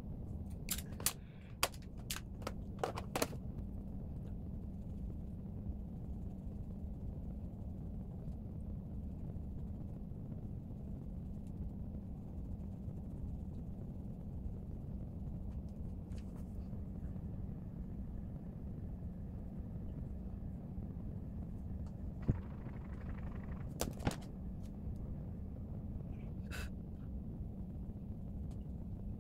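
Steady low room noise with a cluster of sharp clicks in the first three seconds and a few more scattered clicks near the end.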